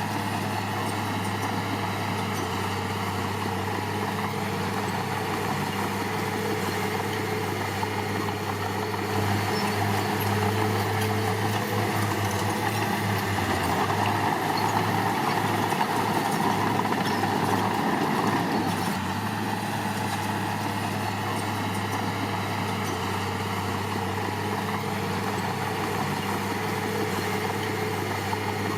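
Diesel engine of heavy earthmoving machinery running steadily. For about ten seconds in the middle it runs louder and rougher, as if under load, then settles back to a steady idle.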